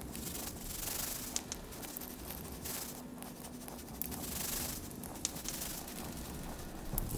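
Experimental electronic noise music played live: waves of hiss and crackle swelling and fading every second or two, with scattered sharp clicks over a low steady hum.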